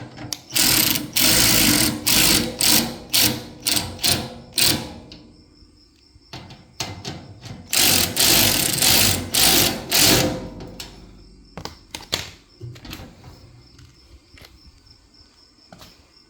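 The tool cart's handle bolts being backed out and driven in with a tool, in two runs of short, quick bursts a few seconds long, then a few scattered clicks and knocks.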